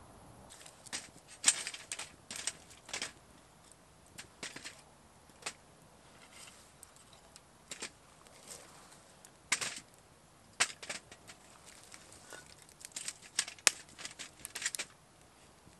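Wood fire crackling and popping in a small perforated metal fire pot: irregular sharp pops and snaps, in clusters, some of them loud.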